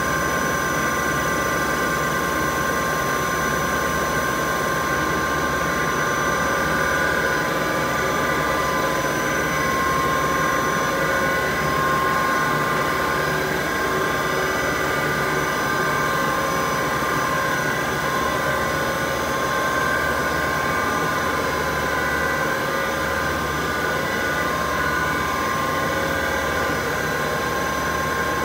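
Steady din of a running HDPE pipe extrusion line, with several constant high tones over a rumble of machinery.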